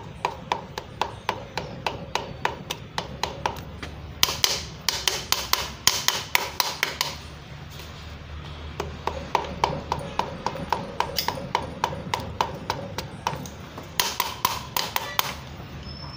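Quick, light taps of a hammer's wooden handle on a piston crown, driving the piston and its rings through a ring compressor into a cylinder bore of a Suzuki Ertiga gasoline engine block. The taps come in runs of several a second with short pauses between, loudest from about four to seven seconds in and again in a short run near the end.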